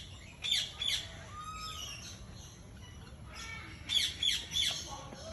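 Birds squawking in an aviary: short, sharp, high calls, two near the start and a quick run of several about four seconds in.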